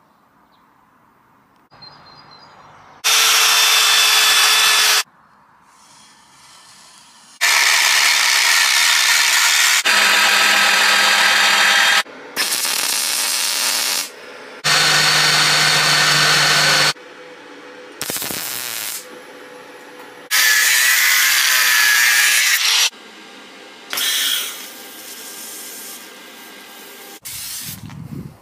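A run of short clips of power tools working steel, each a loud whining grind lasting two or three seconds that starts and stops abruptly, with quieter stretches between. In one stretch near the middle the tool's pitch wavers up and down.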